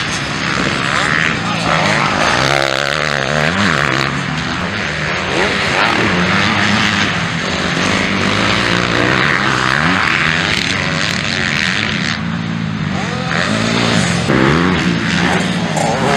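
250cc MX2 motocross bike engines revving hard, pitch repeatedly climbing and dropping as the riders accelerate out of corners and shift.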